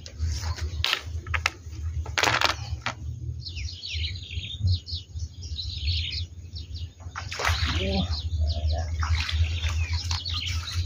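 Small birds chirping in quick, repeated twittering calls, over a steady low rumble.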